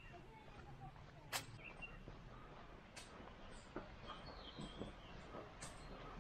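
Footsteps on a forest trail: a few sharp clicks from steps on twigs and stones, the loudest about a second and a half in, with faint bird chirps in the background.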